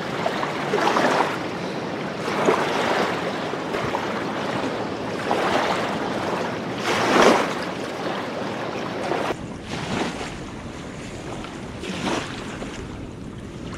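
Wind gusting on the microphone: a steady rushing noise that swells and fades every second or two.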